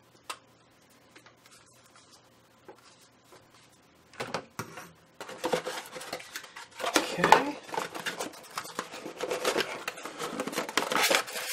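Cardboard packaging being handled: a single light click just after the start, then from about four seconds in, continuous loud rustling and scraping of cardboard as the box flaps and a cardboard insert are pulled out of the box.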